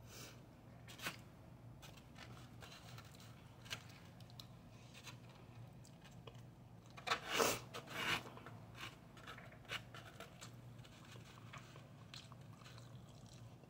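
Quiet eating sounds: a plastic spoon scraping and tapping in a styrofoam takeout box, with soft chewing of fried rice. Small scattered clicks, and a louder rustle and scrape about seven seconds in.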